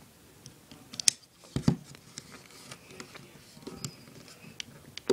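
Hands working at a GoPro Hero 3's clear plastic waterproof housing to get the camera out: scattered small plastic clicks and knocks with faint rustling, two louder knocks between one and two seconds in.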